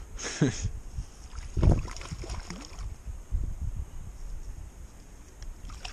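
Wind rumbling on the microphone, with a dull knock just under two seconds in and a few softer thuds. A brief falling vocal sound comes near the start.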